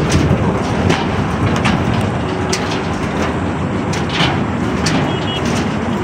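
Concrete mixer with its attached material hoist running steadily, the drum churning, with irregular sharp clanks and knocks through the rumble.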